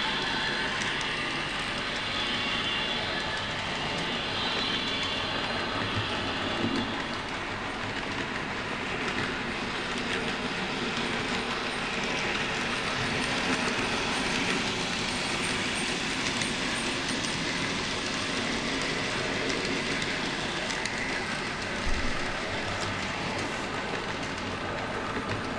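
Sound-fitted N gauge Class 321 model train running on the layout: its DCC sound decoder plays electric multiple unit running sounds through the model's small speaker, mixed with the model's wheels on the track, a steady sound that carries on after the train has gone out of sight. A short knock about 22 seconds in.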